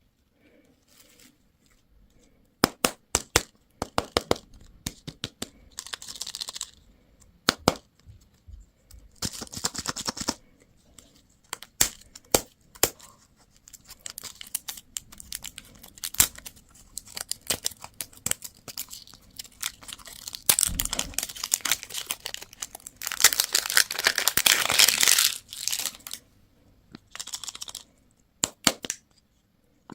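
Plastic and foil candy and toy packaging being torn open and crinkled, broken up by sharp plastic clicks and snaps. A longer, louder stretch of crinkling comes about three quarters of the way through.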